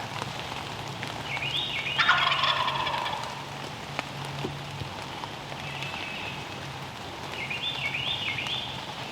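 Wild turkey gobbler gobbling once, a loud rattling call about two seconds in. Shorter high stepped bird notes come just before it and again near the end.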